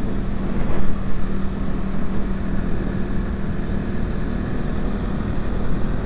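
KTM motorcycle engine running at a steady cruise while riding, its even hum under a continuous rush of wind and road noise.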